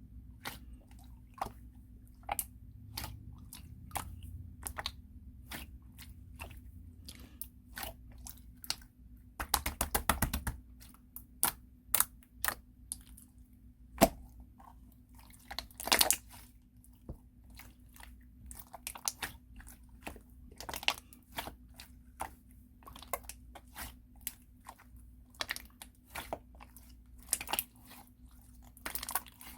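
Clear slime being squished and pressed by hand, making irregular sticky clicks and pops, with a quick run of them about ten seconds in.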